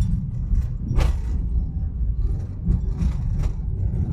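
Car in motion heard from inside the cabin: steady low road and engine rumble, with a sharp click about a second in.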